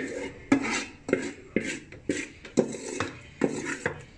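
A spoon knocking and scraping against a metal cooking pot while boiled spinach is scooped out, sharp clatters about twice a second.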